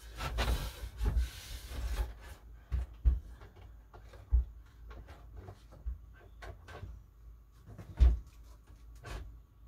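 A wooden shelf board scraping and knocking as it is pushed and shifted into place on metal shelf brackets: a long scrape over the first two seconds, then scattered knocks, the loudest about eight seconds in.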